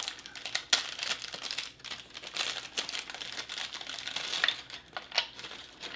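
Foil biscuit wrapper crinkling and crackling as it is opened by hand, with sharper crackles about a second in and again around five seconds in.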